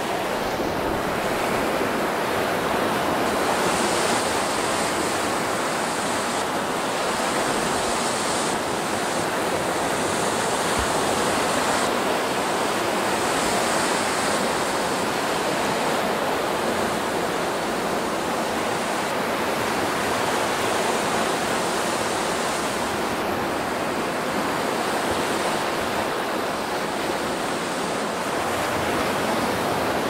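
Lake surf washing steadily against the shore, a continuous rushing noise with no breaks. A thin high hiss fades in and out above it.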